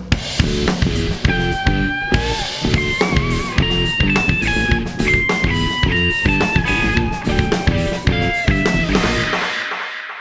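Band music with a drum kit and guitar playing under a stepping melody line, fading out near the end.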